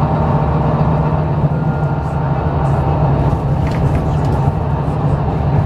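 Volvo B9TL double-decker bus under way, heard from inside the passenger saloon: its 9.3-litre six-cylinder diesel gives a steady low hum over even road and tyre noise.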